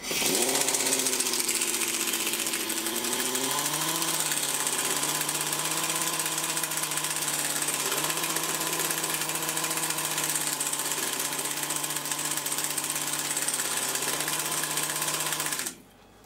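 Half-inch-drive pneumatic impact wrench hammering continuously on a stubborn bolt, run at low speed. Its pitch climbs over the first few seconds, then holds steady for about twelve seconds before cutting off abruptly.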